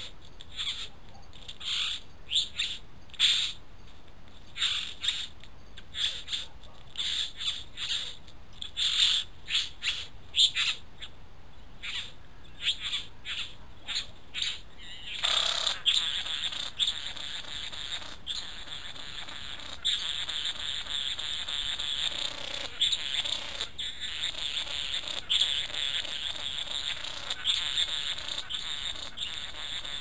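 Young green male satin bowerbird calling at its bower: a run of short calls, one or two a second, then from about halfway a continuous unbroken stream of calling.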